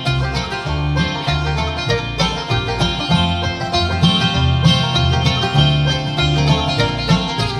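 Live bluegrass band playing an instrumental passage between sung lines: banjo, mandolin and acoustic guitar picking quick notes over upright bass.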